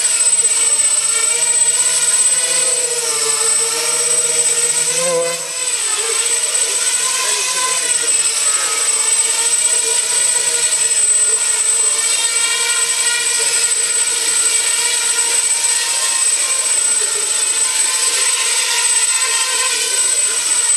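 Small quadcopter's four electric motors and propellers whining as it hovers, the pitch wavering up and down as the flight controller keeps correcting. About five seconds in the pitch dips briefly and climbs back, with a thin steady high whistle above it all.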